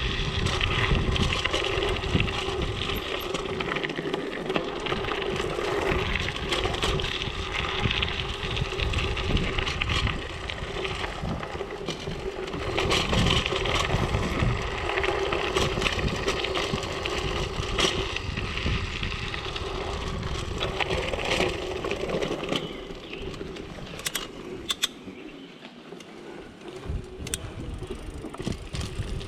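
Mountain bike tyres rolling over gravel, crunching and rattling steadily with many small clicks from the loose stones and the bike. It turns quieter for a few seconds near the end.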